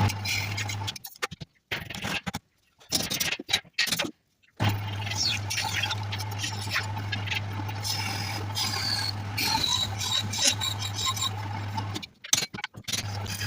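Wood lathe running with a steady motor hum while a turning tool scrapes and cuts the spinning wood. The sound is chopped into pieces by several sudden cuts to silence.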